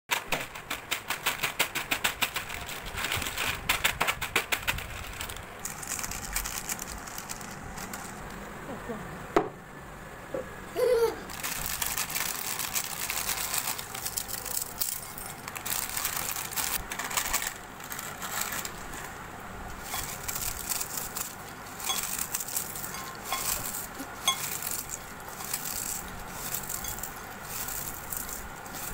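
Foil potato-chip packet crinkling as it is snipped open with scissors, then crisp chips rattling into a glass bowl and crackling as they are crushed by hand. The crackle is densest in the first few seconds.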